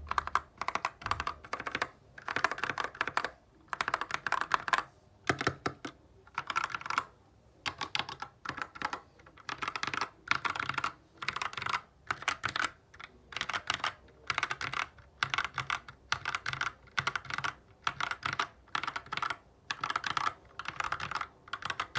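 Typing on a GK61 60% mechanical keyboard with Gateron Optical Brown switches: a rapid clatter of keystrokes in short bursts, with brief pauses between them.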